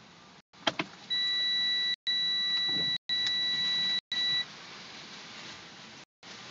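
Two sharp clicks, then a steady high-pitched electronic beep held for about three seconds, broken by brief cut-outs in the audio; after it, a faint steady rush of wind.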